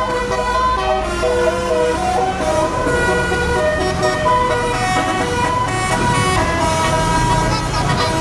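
Indonesian bus 'telolet' horn playing a tune: several steady horn tones sounding together, changing pitch every half second or so, over the low running of the bus engine.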